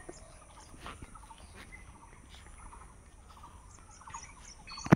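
Birds chirping and calling in short scattered notes over a steady high-pitched insect trill. A single sharp click near the end is the loudest sound.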